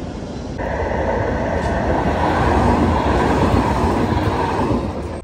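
City tram passing close by on its rails: a steady rolling rumble that starts suddenly about half a second in, grows louder, then fades near the end.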